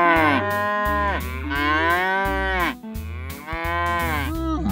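Cartoon cows mooing: several long moos one after another, each arching up and then falling in pitch, over a children's music track with a bass line and a steady beat.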